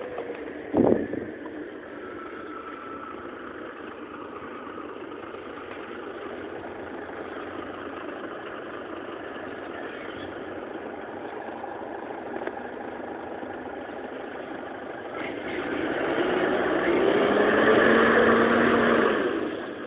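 City bus engine running at a steady low idle, with a short loud knock about a second in. Near the end the engine grows much louder and its pitch rises as the bus accelerates, then the sound drops away.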